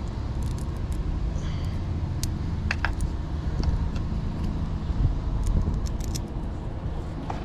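Small metal screws and washers clinking lightly as they are handled and the washers fitted onto the screws, a few scattered clicks over a steady low hum.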